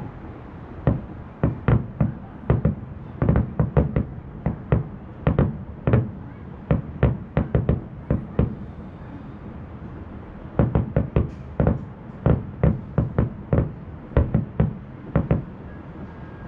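Distant aerial firework shells bursting in quick, irregular succession: a string of sharp bangs, often several a second, with brief lulls between volleys.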